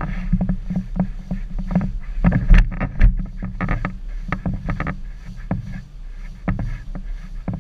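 Irregular knocks, rustles and scrapes of a handheld camera pole rubbing against an inflatable costume while walking, over a steady low rumble.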